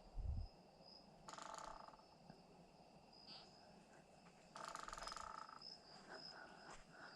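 Faint night insect chorus: a steady high-pitched chirring throughout, with two short, rapidly pulsed buzzing trills about three seconds apart. A soft low thump just at the start.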